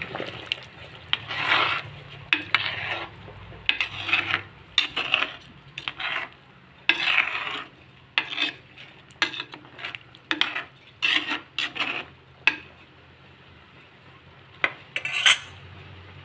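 A metal spoon stirring a simmering fish curry, scraping and knocking against the pot in short, irregular strokes. The stirring stops about twelve seconds in, with two more brief scrapes near the end.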